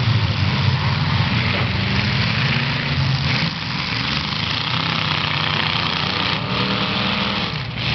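Several demolition derby cars' engines running and revving at once, a loud continuous mechanical din.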